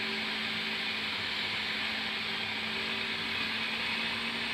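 Food processor motor running at speed, its blade churning a dry mix of flour, cocoa powder, melted ghee and jaggery into cookie dough: a steady hum with a whirring hiss over it.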